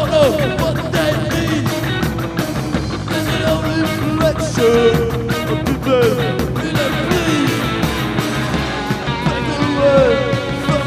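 Live rock band playing a song: electric guitar and drums, with guitar notes bending up and down.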